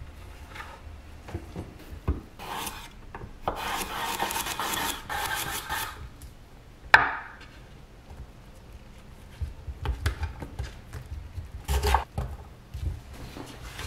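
Chef's knife slicing a cucumber on a wooden cutting board: irregular knocks of the blade on the board, with a sharp loud knock about seven seconds in and a quicker run of light taps near the end. Between them, about four seconds in, comes a few seconds of rough noise.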